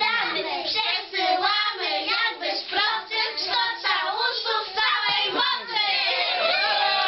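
Young children singing a song together as a group.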